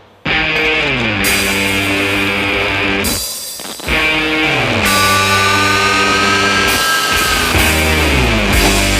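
Rock music with a guitar riff whose held notes slide downward in pitch again and again; it cuts out briefly at the very start and again about three seconds in.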